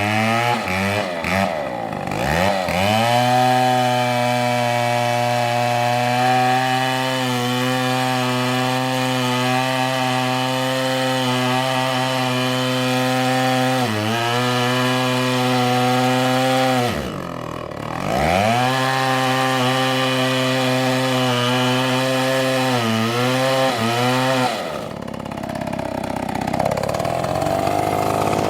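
Two-stroke chainsaw running at high revs while cutting oak, its pitch sagging now and then under load. About seventeen seconds in it drops briefly toward idle and revs back up, and near the end the steady note breaks up into a rougher, noisier sound.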